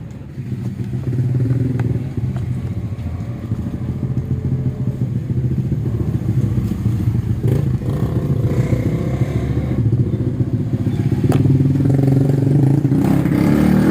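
Honda Scoopy 2017 scooter's small single-cylinder engine running at idle with a rapid, even beat, getting a little louder near the end.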